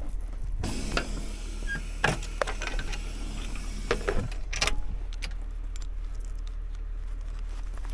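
Steel chain clinking and rattling as it is handled and drawn over a log trailer's bunk, with several sharp metal knocks, the loudest about two seconds and four to five seconds in.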